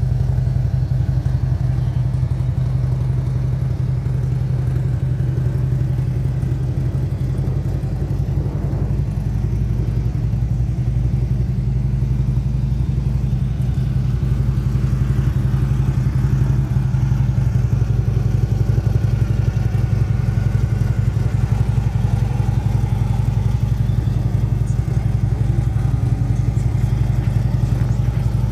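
Harley-Davidson Street Glide CVO's V-twin engine idling steadily.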